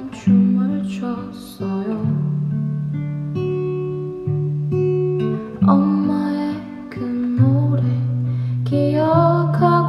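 Acoustic guitar played slowly, chords struck every second or two with a low bass note ringing under each.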